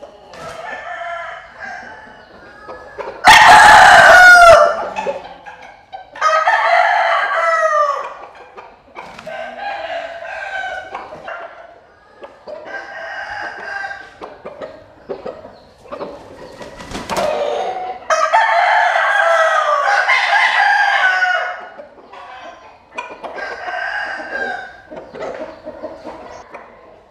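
Roosters crowing again and again, about nine crows a few seconds apart, among them the caged Asil gamecock. The loudest crow, close and very loud, comes about three seconds in. Others are fainter.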